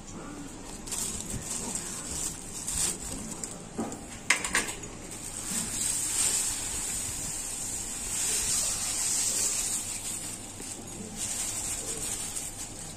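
Sugar poured from a plastic bag into a steel kadhai of simmering, foaming liquid: a steady hiss of bubbling and falling granules that grows louder while the pouring goes on, with some plastic crinkling. There is one sharp clink about four seconds in.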